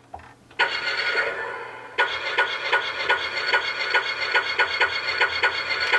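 Dora Talking Vamonos Van toy playing electronic music from its small speaker at the press of a side button. A short jingle starts under a second in and fades, then a tune with a quick, even beat starts about two seconds in.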